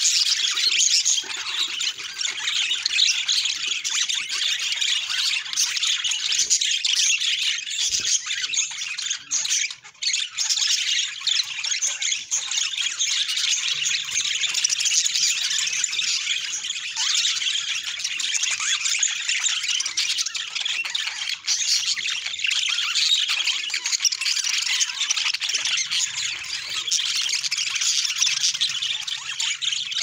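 A flock of budgerigars chattering: a dense, continuous mix of high warbles, chirps and squawks, with a brief lull about nine seconds in.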